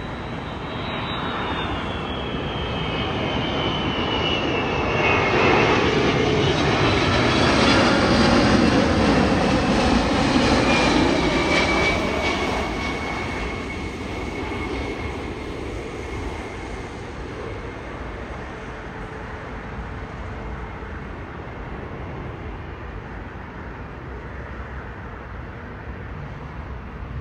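Jet airliner on approach to land flying past: the engine noise swells for about six seconds, holds for several more and then slowly fades away. A high whine falls in pitch as the aircraft approaches.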